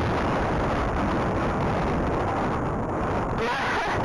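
Strong blizzard wind buffeting a head-mounted camera's microphone: a steady, loud rumble of wind noise.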